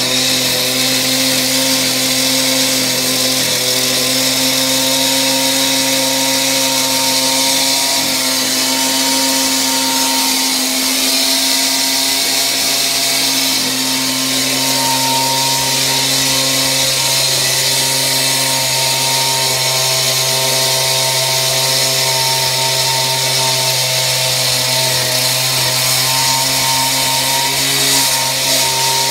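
Power tools running loudly and steadily, a constant motor hum and hiss that holds without a break.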